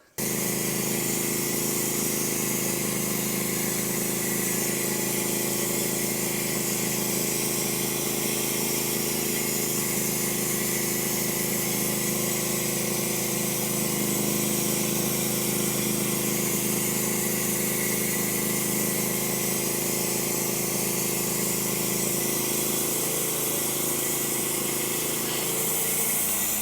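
Norwood HD36v2 portable band sawmill running steadily at speed, its engine hum under the hiss of the band blade cutting through oak. It starts and stops abruptly.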